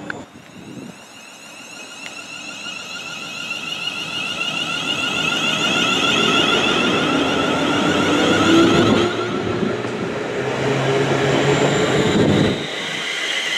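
London Northwestern Railway Class 350 Desiro electric multiple unit pulling away, its traction motors giving a rising, layered whine that grows louder as it gathers speed. The sound is cut off abruptly near the end.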